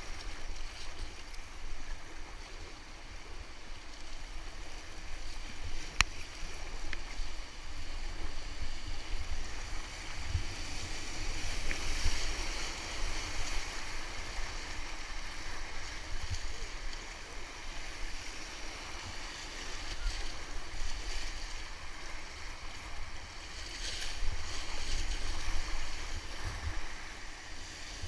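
Rushing whitewater around an inflatable kayak running a rapid, with wind buffeting the microphone; the rush swells louder about halfway through and again near the end. One sharp click early in the run.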